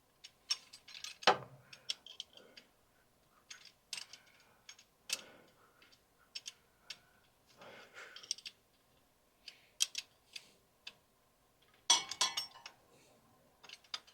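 Hand tools working on metal engine parts: irregular clicks, clinks and clunks of a wrench on the bolts and brackets of the engine's pulley and alternator mounting. The loudest knocks come about a second in and near the end.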